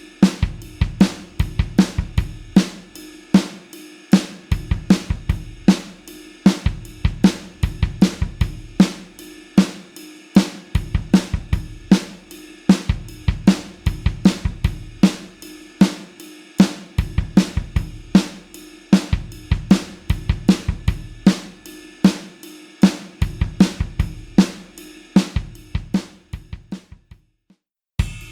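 Rock drum kit playing a steady beat of kick drum, snare, hi-hat and cymbals. The beat dies away about 27 seconds in, and a new drum beat starts right at the end.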